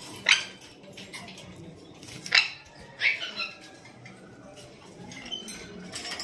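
Caged lovebirds calling with sharp, shrill chirps. There is a loud call just after the start, another at about two and a half seconds, and a quick cluster of calls just after three seconds, with fainter chatter in between.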